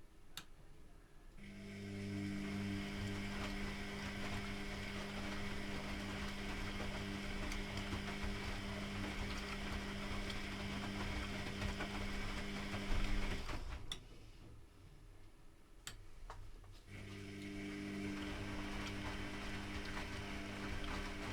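Privileg Classic 30612 washing machine turning its drum during a 95° boil wash: the drum motor runs with a steady hum and whine for about twelve seconds, stops for about three seconds with a click, then starts up again.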